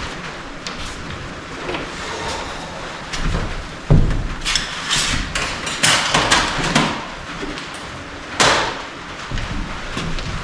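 Metal transmission parts and tools being handled on a workbench: a heavy clunk about four seconds in, then a run of sharp clanks and clatter, and another sharp knock near the end.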